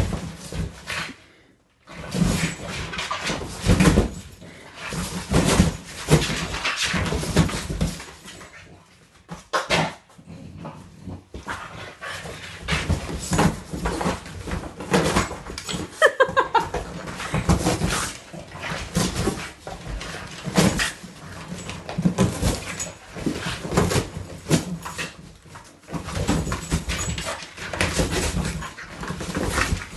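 French bulldog tearing and worrying a large cardboard box with its teeth, in irregular bouts of ripping and crumpling cardboard, with short pauses. The dog snuffles and whines as it works, with a brief falling whine about halfway through.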